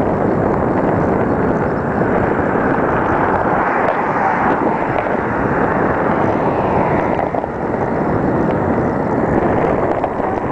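Wind buffeting the microphone of a camera on a moving bicycle: a steady, loud rushing noise.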